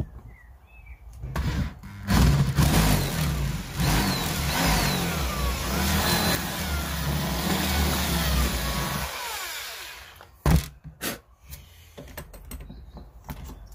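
Electric drill run in reverse, boring a 12 mm hole into a wooden lure blank. It starts about two seconds in, runs steadily for about seven seconds and stops, followed by a single sharp knock.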